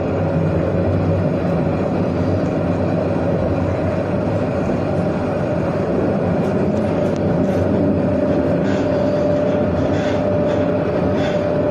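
Tram running on its rails, heard from inside the car: steady wheel and running noise with a high whine that rises slightly in pitch, and a few faint clicks in the second half.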